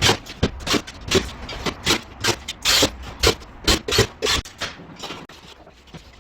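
An irregular series of short knocks and clacks, several a second, with scraping in between, thinning out about five seconds in.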